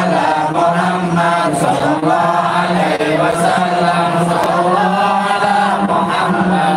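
Many voices chanting a devotional sholawat together in long, sustained sung lines. The congregation is standing, as in the standing part (mahallul qiyam) of a Maulid recitation.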